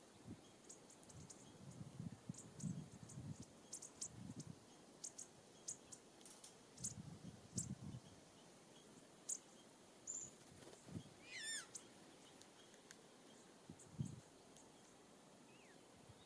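Faint calls of wild birds at a feeder station: many short, very high chirps scattered throughout, and one quick falling run of notes a little past the middle. Soft low thuds come now and then.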